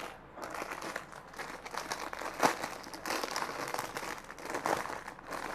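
Plastic packaging crinkling and rustling as it is handled, with a sharper click about two and a half seconds in.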